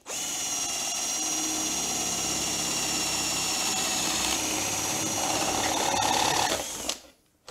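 Cordless drill turning a 16 mm spade bit, boring through a wooden plug tapped into a 12 mm hole to enlarge it. The motor's steady whine sags a little in pitch under the cutting load, then stops about seven seconds in.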